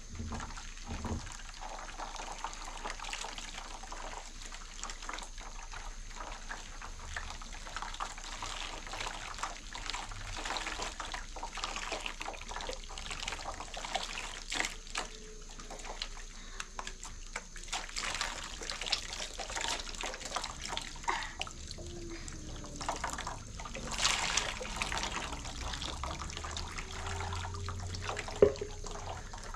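Water poured from a plastic jug splashing over a girl's hair and trickling into a plastic basin as her hair is rinsed, with hand splashes; a single sharp knock near the end.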